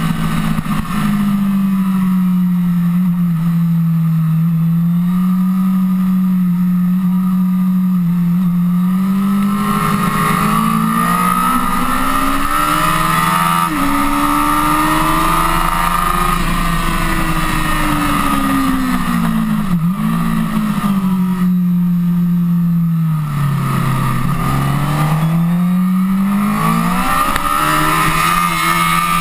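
Honda CBR1000RR's inline-four engine at speed, its note climbing as the rider accelerates and dropping as he rolls off and shifts, several times over.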